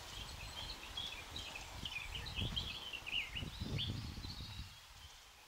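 Small songbirds chirping and singing in a pine and birch wood, many short overlapping phrases. Under them is a low, uneven rumble that fades out near the end.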